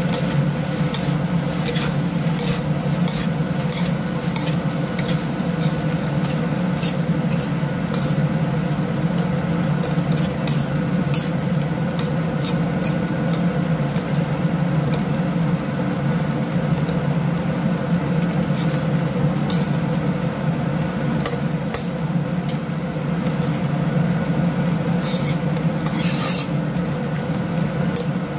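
A wooden spatula scrapes and tosses fried rice around a wok in many short, irregular strokes over a steady sizzle of the rice frying, with one stronger scrape about 25 seconds in. A steady low hum runs underneath.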